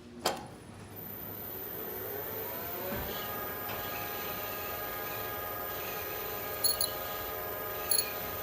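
Lift starting upward: a sharp click, then the drive motor whines rising in pitch for about two seconds and settles into a steady hum. There is a thump as it reaches speed, and two short high squeaks near the end. This is the start-of-up-move noise that the owner attributes to the lift's brake.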